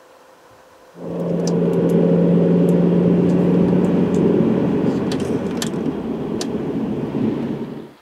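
Car driving along a road, heard from inside the cabin: steady engine and tyre noise with a low hum, with a few small clicks. It starts abruptly about a second in and cuts off just before the end.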